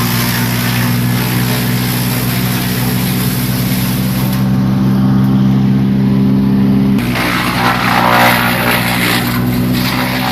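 Gas-engine wood chipper running steadily at speed. About seven seconds in, its engine note dips slightly and a rougher, louder grinding noise follows, the sign of the engine taking load as material goes through.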